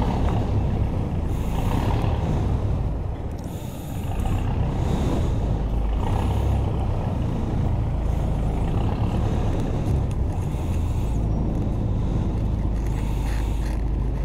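An engine idling steadily with a deep rumble.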